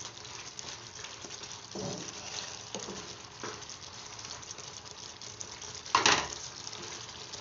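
Butter garlic chicken gravy sizzling and simmering in a non-stick frying pan while a wooden spatula stirs it, with a few soft knocks of the spatula on the pan. A louder clatter comes about six seconds in.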